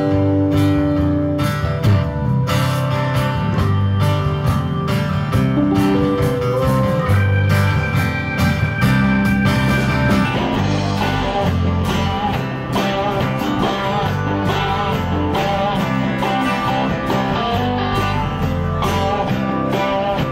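Live band playing: acoustic and electric guitars over bass guitar and drums keeping a steady beat.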